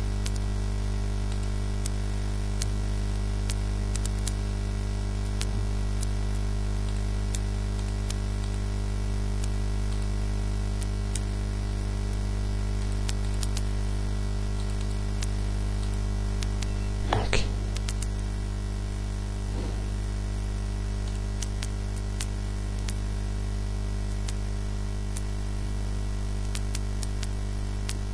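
Steady electrical hum and hiss from a computer microphone, with scattered faint clicks of a computer mouse. A brief louder sound stands out about two-thirds of the way through.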